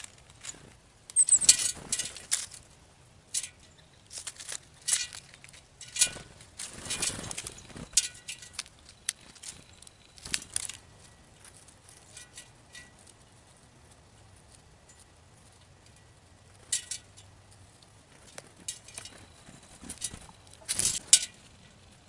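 Northern cardinals and a blue jay feeding from seed trays on a metal table: irregular sharp clicks and taps of bills pecking and feet hopping on the trays, coming in clusters, with a quieter stretch in the middle.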